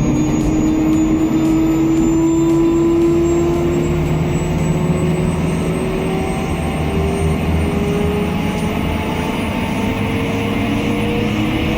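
Bell 505 helicopter's Safran Arrius turboshaft engine starting, its whine rising slowly and steadily in pitch as the turbine spools up.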